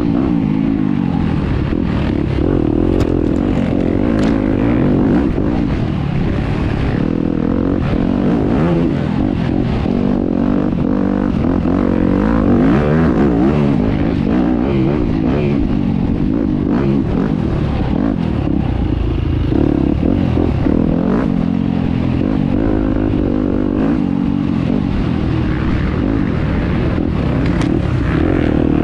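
Enduro dirt bike engine revving up and down as the throttle is opened and shut over rough ground, its pitch rising and falling again and again, with scattered knocks.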